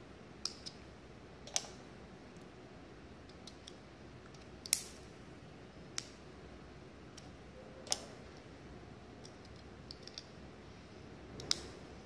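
LC fiber loopback connector being plugged into and out of an SFP transceiver's optical port. Its plastic latch gives a few short, sharp clicks as it snaps into position, which shows the connector is fully latched. The loudest click comes about five seconds in.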